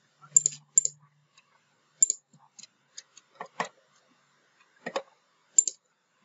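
Computer mouse and keyboard clicks: about ten short, sharp clicks spaced irregularly, a few with a duller knock.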